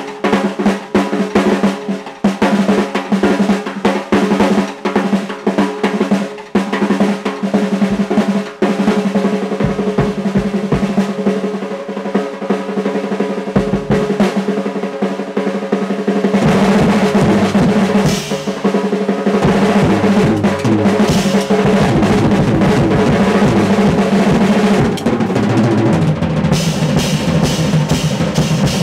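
Acoustic drum kit played solo: fast snare and tom rolls, with the bass drum coming in and the playing growing louder about halfway through, and cymbals near the end.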